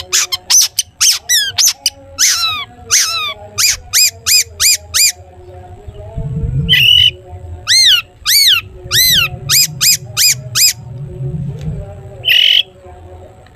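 Long-tailed shrike (cendet) in full song: a fast run of short, sharp whistled notes, first falling in pitch and later rising then falling, broken by two harsh squawks, one about seven seconds in and one near the end.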